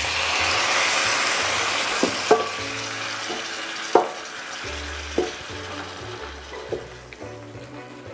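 Water poured into a hot stainless steel pan of frying chili paste sizzles loudly, and the sizzle slowly dies down over several seconds. A wooden spatula stirring the pan knocks against it a few times.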